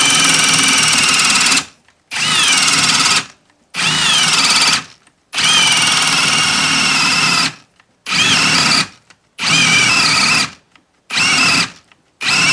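Ryobi brushless hammer drill boring a spade bit into a wooden post, its motor running in loud bursts that cut off and restart about six times. Each burst opens with a whine that drops in pitch as the bit loads up. The drill is stopping repeatedly under the load.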